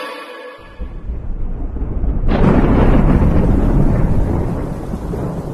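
A deep, thunder-like rumble. It starts about half a second in, then a loud boom breaks in about two seconds in, swells and slowly dies away.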